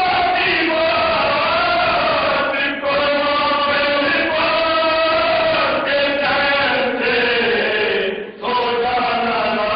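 Men's voices chanting a Marsiya, an Urdu elegy, in long held, sliding notes, with short breaths about three seconds in and again near the end.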